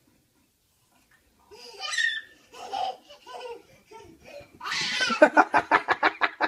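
Near silence, then a person's voice starting about a second and a half in, building into hard, rapid laughter about halfway through.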